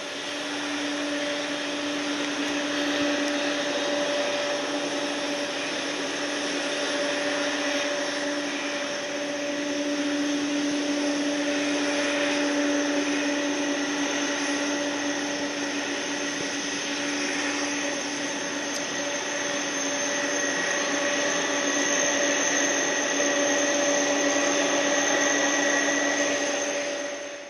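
Airliner's jet engines running, a muffled growl: a few steady whining tones over a broad, even rush.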